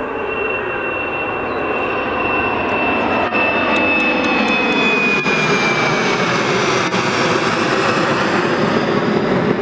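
Jet airliner passing close by, its engine noise growing louder, with a high whine that drops in pitch about halfway through as the aircraft goes past.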